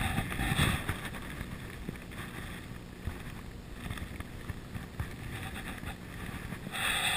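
River water splashing and lapping at the surface close by, with wind buffeting the microphone; the splashing rises louder about half a second in and again near the end.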